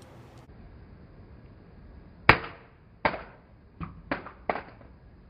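A flip phone dropped onto a hard surface: one sharp, loud impact, then several smaller clattering knocks over the next two seconds as it bounces and settles.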